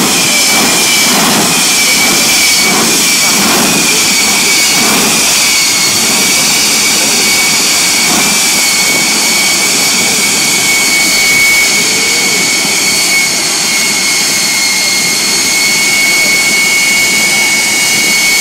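Jet engine of a jet-powered drag-racing semi truck running steadily: a loud, constant roar with a high-pitched whine that holds its pitch.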